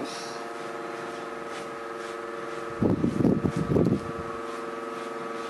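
A soft brush swept over the resin drills of a diamond painting canvas, a rubbing noise lasting about a second near the middle, over a steady electrical hum.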